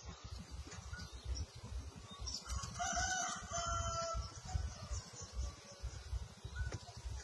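A rooster crowing once, a single drawn-out call about two and a half seconds in, over a low, uneven rumble.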